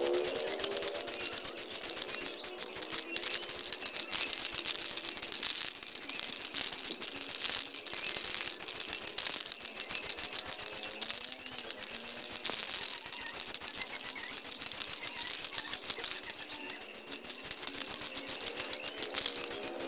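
Aerosol spray can of clear coat: its mixing ball rattles in quick clicks as the can is shaken, broken by a few short hisses of spray.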